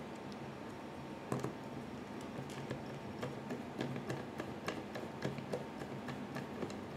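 Light, irregular clicking and ticking of a small Torx screwdriver turning a mounting screw into the side of a replacement SSD, starting about a second in.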